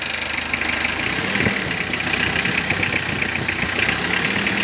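Mazda R2 four-cylinder diesel engine idling, its cooling fan and drive belts turning, with a fast, even clatter on top. It is running on a freshly fitted timing belt.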